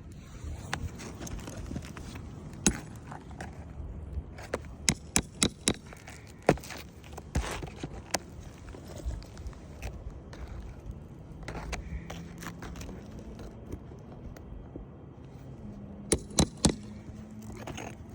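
Hand tools working on asphalt roof shingles during a shingle repair: scattered sharp taps and clicks, some in quick runs of four or five, with scraping in between.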